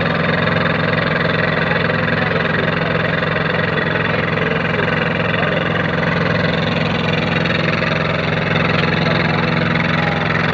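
Motor of a hydraulic concrete kerb-stone press running steadily at an even pitch, with no change through the stretch.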